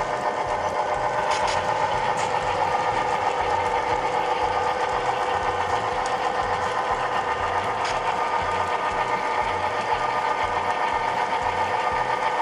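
HO scale model train running along the track: a steady electric motor whine with an even, rapid pulsing from the wheels rolling on the rails, and a few sharper clicks.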